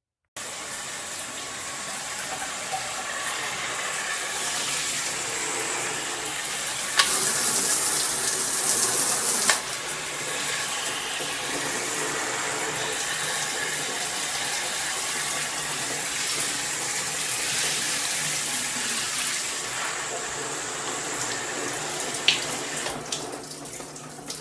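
Water spraying steadily from a Cobbe 9-function handheld shower head, a continuous hiss. It grows louder for a couple of seconds from about a third of the way in, starting and ending with a sharp click, and there is another click near the end.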